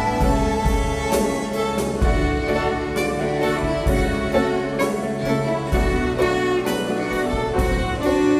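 An orchestra plays sustained chords, with bowed strings prominent and a steady beat of percussive strikes about once a second.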